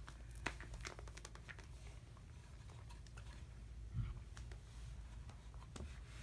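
Faint scattered clicks and light taps of a doll and a doll-sized chair being handled, with a soft thump about four seconds in.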